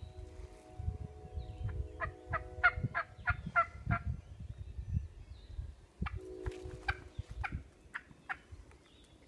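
Turkey mouth call blown to imitate hen turkey yelps: two runs of sharp, quick notes, about three a second, over a steadier held tone.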